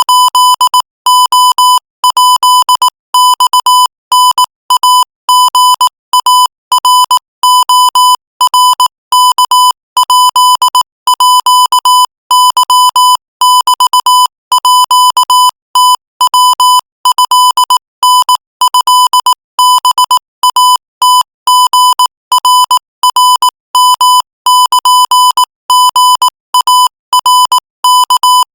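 Electronic Morse code tone at one steady pitch, keyed on and off in quick short and long beeps at 22 words per minute, sending Thai text.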